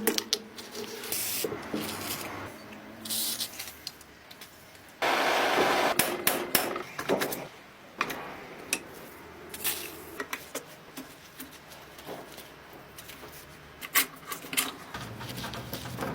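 Workshop hand-tool work on an old noodle-making machine: scattered taps and knocks, with a dense scraping burst lasting about a second, about five seconds in.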